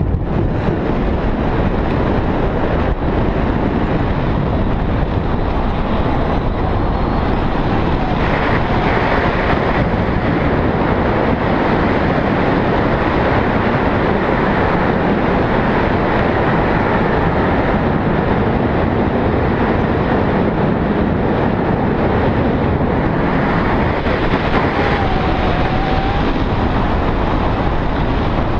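Steady rush of wind buffeting an action camera's microphone during a tandem paraglider flight, loud and unbroken.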